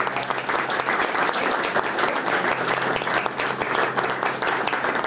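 A small crowd applauding steadily, many hands clapping at once, with a faint steady low hum beneath.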